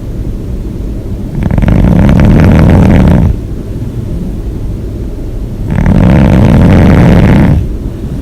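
A person snoring loudly: two long snores of about two seconds each, a little over four seconds apart, with a quieter low sound between them.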